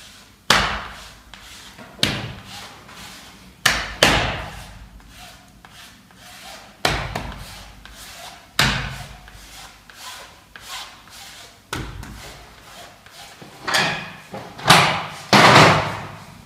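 Plastic wallpaper spatula swept hard across freshly pasted vinyl wallpaper to press a butt seam flat, about a dozen scraping strokes, each starting sharply and trailing off, every second or two, the loudest near the end.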